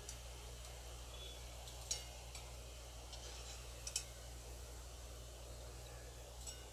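Stainless steel wire skimmer lightly clinking against a steel kadai a few times as fried kachoris are lifted out of the oil, the sharpest clink about four seconds in, over a faint steady low hum.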